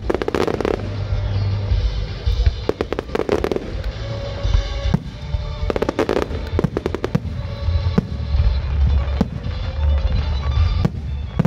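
Fireworks display: aerial shells bursting with deep booms, and rapid runs of sharp crackling reports coming in clusters every few seconds.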